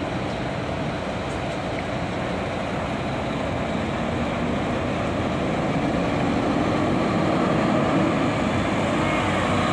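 Volvo B11R coach's straight-six diesel engine pulling away and driving slowly past, growing louder as it comes close about eight seconds in.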